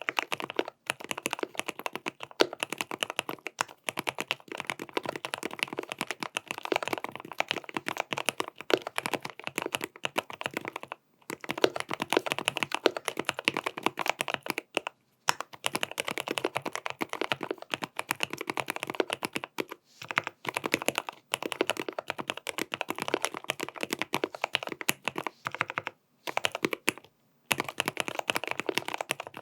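Continuous fast typing on a GMMK PRO custom mechanical keyboard fitted with stock Gateron North Pole linear switches, tape-modded with switch pads and PBT cherry-profile keycaps. Dense key strokes run on, stopping briefly a few times.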